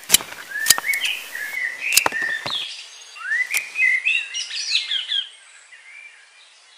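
Pruning shears snipping through flower stems: several sharp clicks in the first three or four seconds. Small birds chirp throughout and fall quiet near the end.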